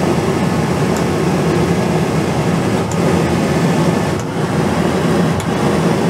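Newly installed Coleman Mach rooftop air conditioner on its first test run, its blower moving air steadily and loudly through the free-blow ceiling assembly. A few faint clicks come from its control knob being turned.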